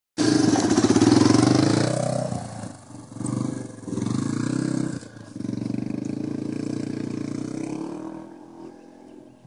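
Dirt bike engine revving as the bike pulls away, loudest at first, then the engine note climbing and dropping several times and growing fainter near the end as the bike rides off up the track.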